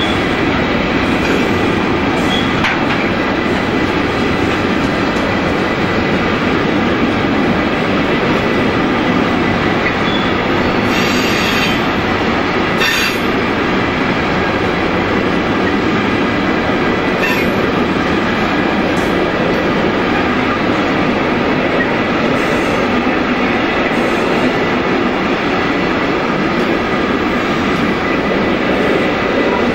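Container freight train's loaded flat wagons rolling past at steady speed: a continuous rumble of steel wheels on the rails, with a few brief sharp clacks from the wheels and couplings in the middle.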